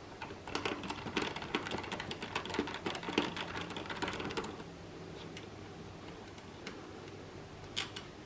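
A quick run of small clicks and taps from hands and a tool working on an Xbox One S's plastic casing and screws, lasting about four seconds. It then thins out to a few scattered clicks.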